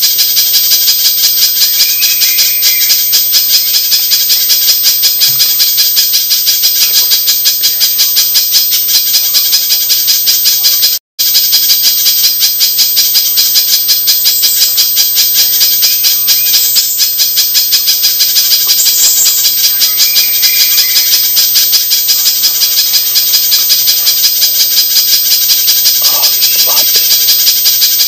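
Recorded lure call of a spiderhunter (pijantung): an unbroken, loud string of rapid, shrill, rattling notes, played on a loop as a bird-trapping lure and training call. It breaks off for an instant about eleven seconds in.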